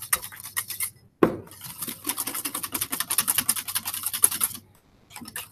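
Wire whisk beating against a stainless steel bowl in rapid, even clinking strokes, whisking raspberry jam thinned with water. It pauses briefly about a second in and again near the end.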